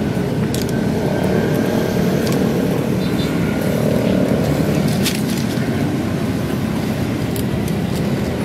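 Steady rumble of road traffic, with a few light clicks of bamboo sticks being laid and handled.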